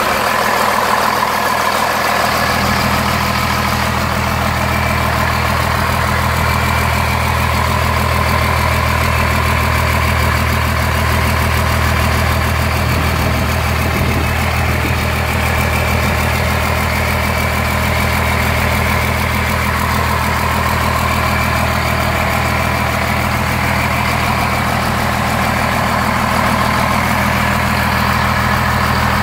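1989 Cummins 6BT 5.9-litre inline-six turbo diesel idling steadily.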